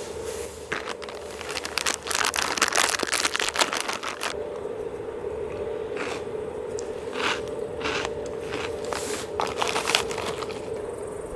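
Crinkling and rustling of something being handled, in a dense run of crackles for a couple of seconds and then in shorter scattered bursts, over a steady low hum.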